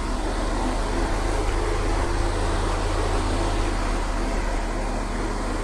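Steady background room noise: an even hiss with a low hum underneath, unchanging throughout, with no distinct events.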